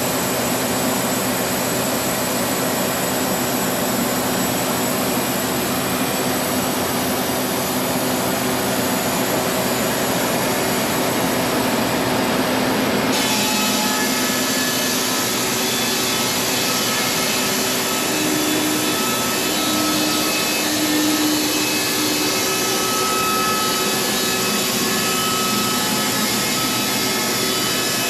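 Sawmill blade cutting lengthwise through an old heart pine beam, with the mill running at a steady loud level. The sound changes character suddenly about halfway through.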